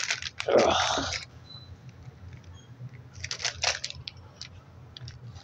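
Crackling and rustling handling noise as toy figures are moved about on carpet, with one louder rough burst lasting under a second about half a second in, then scattered short clicks and crackles.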